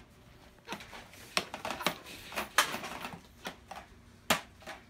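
Irregular sharp plastic clicks and clacks of toy foam blasters being handled and loaded, about a dozen of them, the loudest about halfway through and again near the end.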